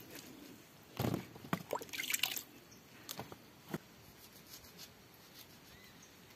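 Water splashing and dripping as oranges are washed and their peel scrubbed by hand, in a cluster of short splashes between about one and two and a half seconds in, then a few fainter ones.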